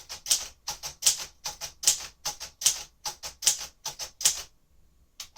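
1957 Royal Aristocrat manual typewriter being typed on: a steady run of sharp typebar strikes, about three to four a second, that stops about four and a half seconds in, followed by one more strike near the end.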